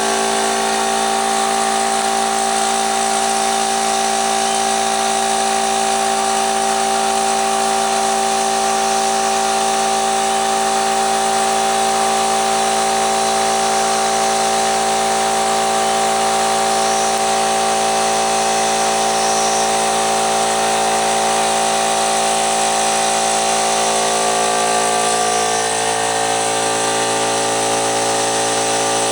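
Central Pneumatic electric air compressor running continuously with a steady mechanical hum, pumping up tank pressure; its pitch shifts slightly near the end. The owner suspects a bad motor capacitor behind its overheating and smoking.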